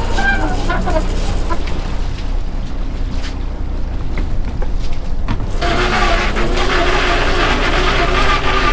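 Lobster boat's engine running steadily while the trap hauler pulls a lobster trap up to the rail. About five and a half seconds in, a louder rushing hiss sets in over the engine.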